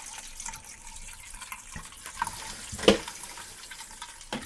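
Fluidmaster quiet fill valve refilling a toilet cistern: a soft steady hiss of water running in through its plastic tube and bag, with light trickling. A single sharp knock about three seconds in.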